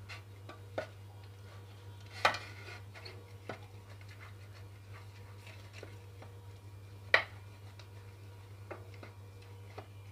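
Silicone pastry brush brushing and tapping inside an aluminium cake tin as it is greased with ghee, with scattered light clinks and knocks of the metal tin, the sharpest about two seconds in and about seven seconds in, over a steady low hum.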